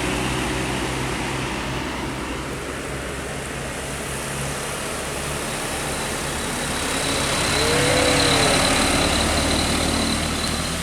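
Road traffic: a motor vehicle engine running, swelling louder about eight seconds in as a vehicle draws close, with a brief faint rise and fall in pitch at that point.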